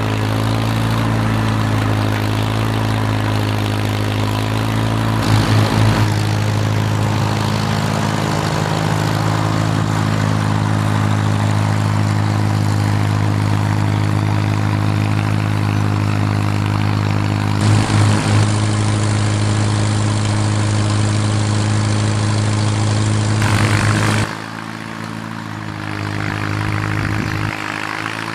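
1948 Farmall M tractor's four-cylinder engine running at a steady speed as the tractor drives away through the snow. Near the end the engine sound drops suddenly and is fainter.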